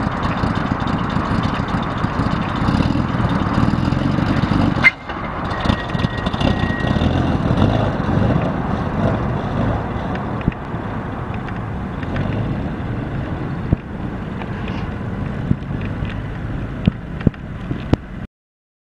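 1929 Buick Master Six's six-cylinder engine running as the sedan drives away, fading slowly as it goes. There is a sharp click about five seconds in, and the sound cuts off suddenly near the end.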